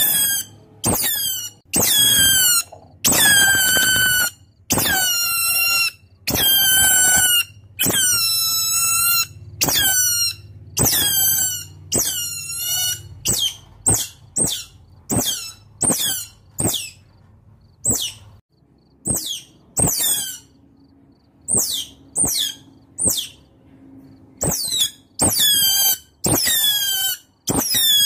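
Otter calls: a rapid series of high, squeaky calls, each dropping in pitch, some drawn-out squeals of up to about a second and others short chirps, with a sparser stretch of short chirps in the middle. Used as a lure call of otters calling to their companions.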